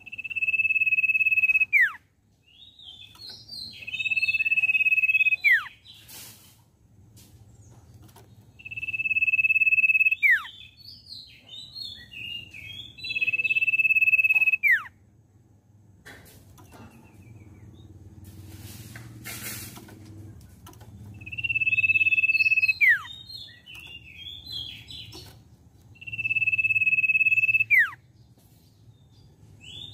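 Common iora (cipoh) singing: a long, steady, high whistle that ends in a sharp downward slur, repeated about six times, with short chattering notes between the whistles.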